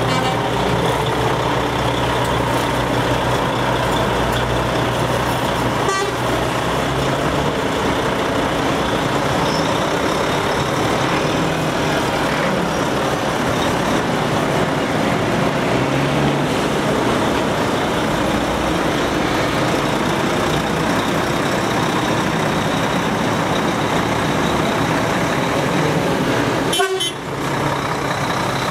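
Diesel engines of heavy show tractor units, DAF CF and Volvo FH, running as the trucks drive slowly past one after another, with horns tooting. The sound breaks off briefly near the end.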